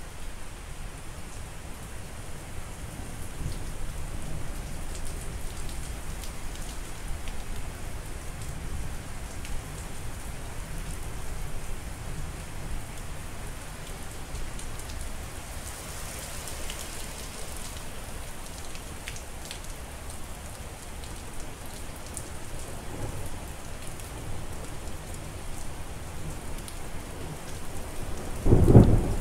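Steady rain falling, with low rumbling of distant thunder underneath. Near the end a loud clap of thunder breaks in and rolls on.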